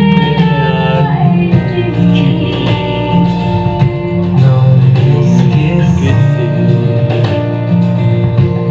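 A song with singing over guitar accompaniment and a steady bass line.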